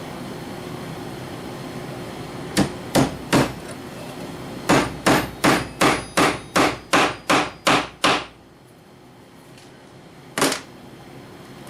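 A hammer driving tacks through leather into a wooden rifle rest: three quick strikes, a pause, then a steady run of about ten strikes at roughly three a second, and one last tap near the end.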